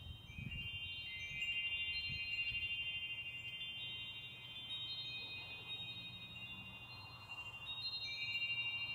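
Hand-held chime gently swayed, several clear high tones ringing and overlapping, with a fresh set of notes struck near the end.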